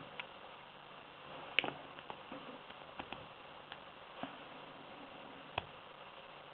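Dimple pick and tension tool working the pins of a six-pin Ucem dimple lock cylinder: scattered small metallic clicks and ticks, the sharpest about a second and a half in and another near the end, over a faint steady hiss.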